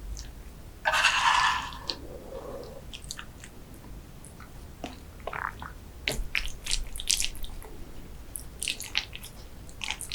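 Close-miked eating of creamy pasta and risotto: wet chewing with scattered mouth clicks and smacks, and one loud short rush of noise about a second in.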